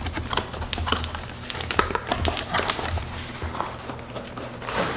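Cardboard shipping box being opened and handled by hand: flaps and panels rustling and scraping, with many scattered crackles and small taps.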